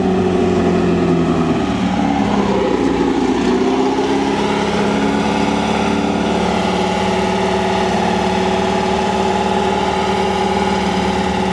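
Off-road race vehicle's engine running. The revs dip and pick up again about three seconds in, then it settles into a steady idle.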